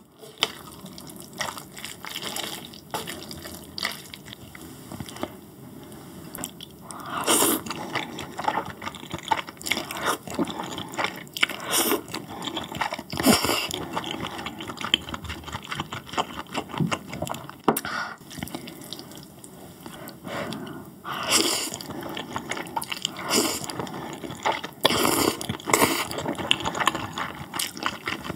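Close-miked eating of spicy fire noodles with cheese: wet slurps of noodles in several bursts, with chewing and small mouth clicks between them.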